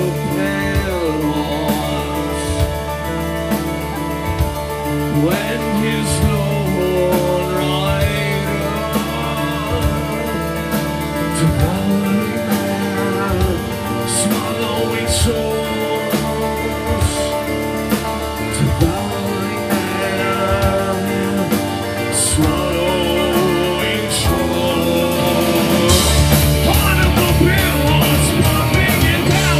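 Rock band playing live, a male singer's vocals over electric guitar, bass and drums. About 26 seconds in, the band comes in louder and heavier.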